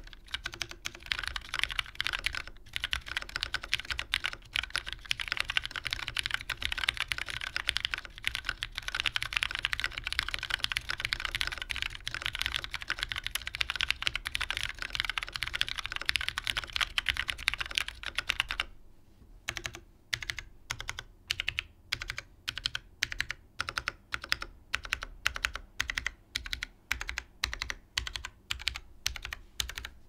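Fast typing on an Antipode Studio FLX Virgo split ergonomic mechanical keyboard with Krytox-lubed Cherry MX Purple tactile switches, a gasket-mounted polycarbonate plate and GMK keycaps: a dense run of overlapping keystroke clacks. About two-thirds of the way through it slows to separate keystrokes, about two a second.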